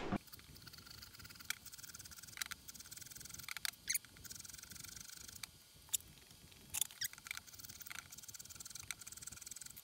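Small hand file scraping lightly over the corners of a steel chuck key's square end, rounding them over so the key fits the chuck's socket. The scraping is faint, with scattered small clicks and ticks at irregular intervals.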